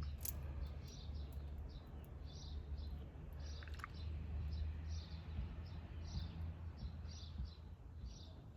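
A small bird chirping over and over, about two short calls a second, over a steady low hum.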